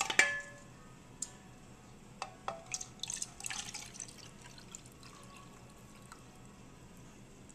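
Hot pan juices poured from a pot into a fat-separator cup, the stream splashing and dripping into the liquid. A sharp knock of the vessels comes just after the start, followed by scattered light clicks.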